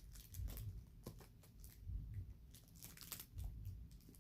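Faint crinkling and rustling of packaging being handled and opened, in scattered short crackles.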